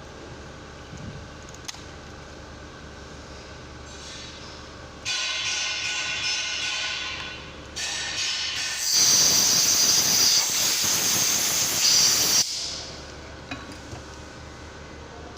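Pressurised gas hissing from a nozzle in bursts: a thinner hiss about five seconds in, then a louder, fuller one lasting about three and a half seconds that cuts off sharply.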